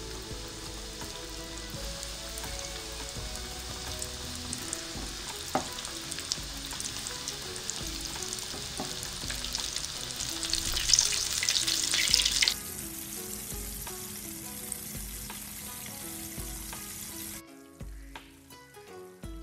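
Chicken wings deep-frying in hot oil in a stainless steel pan: a steady sizzle that turns louder and more crackly about ten seconds in as a wing goes into the oil, then drops abruptly twice, ending as a quieter bubbling sizzle.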